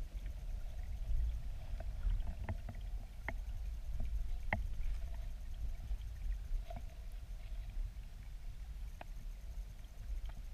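Muffled low rumble of river current flowing past an underwater camera's housing, with scattered sharp clicks, the loudest about four and a half seconds in.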